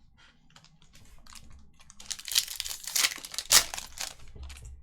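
Crinkling and tearing of a trading-card pack's wrapper being ripped open and handled, busiest and loudest in the second half.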